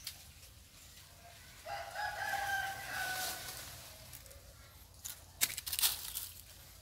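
A rooster crowing once, a single long call of about two seconds that falls slightly in pitch. A few sharp clicks follow near the end.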